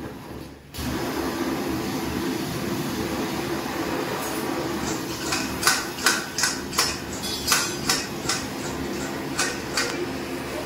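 Metal kitchen utensils clinking: about a dozen sharp knocks, starting about four seconds in, over a steady hum that begins about a second in.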